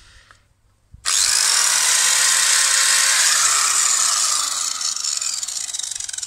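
Electric angle grinder fitted with a wire brush, switched on about a second in and running loud with a high whine and hiss; the whine sinks in pitch through the second half.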